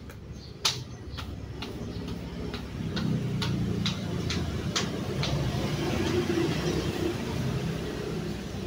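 Flip-flops slapping on a pebbled driveway as a man walks, a sharp click about twice a second, the second one louder, stopping a little past halfway. Under it runs a low, steady rumble that swells in the middle.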